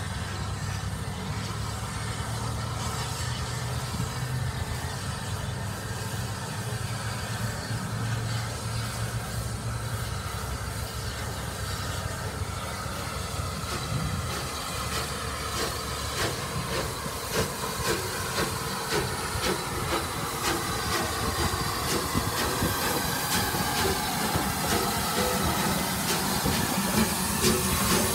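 Two Bulleid Pacific steam locomotives, rebuilt 34053 leading, working a train with steam hissing and a low rumble. About halfway in, a rhythm of exhaust beats and clanking starts and grows louder as the engines draw close and pass.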